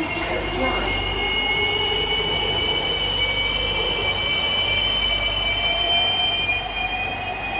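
SMRT C151B train's wheels squealing: a steady, high-pitched screech of two close tones that drift only slightly, over the low rumble of the train running.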